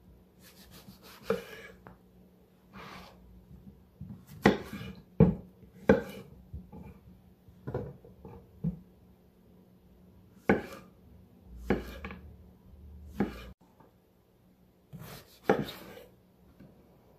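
Kitchen knife slicing eggplant and courgette into rounds on a wooden cutting board: about a dozen sharp knocks of the blade on the board, at an irregular pace with pauses between.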